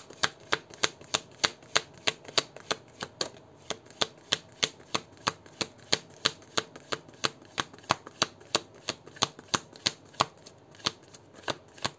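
A deck of divination cards being shuffled by hand to draw one more card, giving a steady rhythm of crisp card slaps about three a second.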